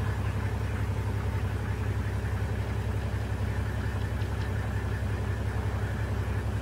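Motor vehicle engine running steadily: an even low hum with a fine rapid pulse that does not change.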